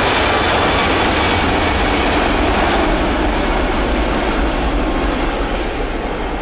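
Jet airliner's engines running at high power as it speeds along the runway: a loud, steady roar with a faint high whine that slowly fades, its highest part dropping away about halfway through.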